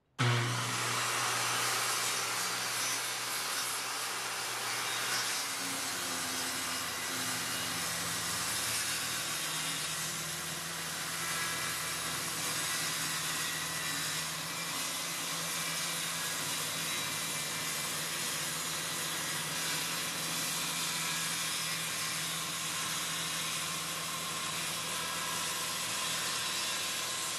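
Corded circular saw starting up abruptly and running steadily as it cuts along a marked line through a plywood panel, trimming it to size.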